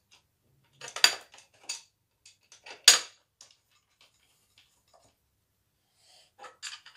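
Sharp metal clinks and taps from handling the 3D printer's aluminium frame parts and steel bolts, a few separate strikes with the two loudest about one and three seconds in.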